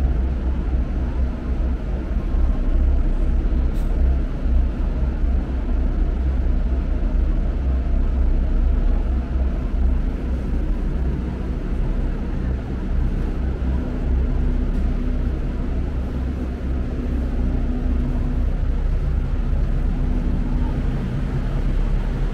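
Cabin noise of an air-conditioned double-decker electric tram: a steady low rumble, with a faint hum that comes and goes in the second half.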